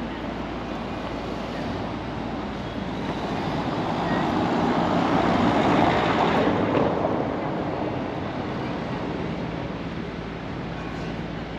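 A car driving past on the street: its tyre and engine noise swells, peaks about halfway through and fades away, over a steady low street background.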